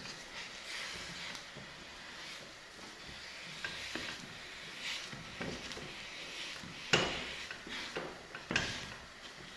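Wooden cooking stick stirring and pressing stiff ugali in a stainless steel saucepan, with irregular knocks and scrapes against the pan over a faint steady hiss. The two loudest knocks come about two-thirds of the way through and again near the end.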